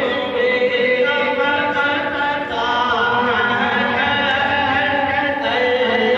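A man's voice chanting an Urdu naat (devotional poem in praise of the Prophet) in long, melismatic held notes, the melody shifting pitch about halfway through and again near the end.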